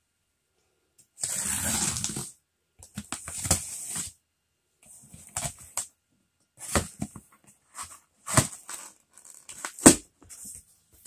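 Packing tape ripped along a cardboard box, then the flaps pulled open and torn, with short crackling rips and sharp cardboard knocks. The first long rip comes about a second in.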